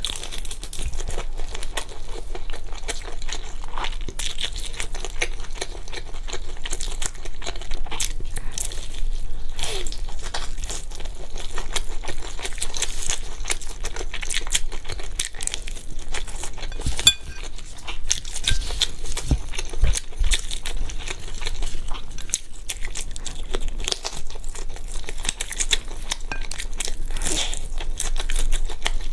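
Close-miked mouth sounds of biting and chewing saucy fried skewered meat: wet, crackly crunching and tearing with many sharp clicks, going on without a break.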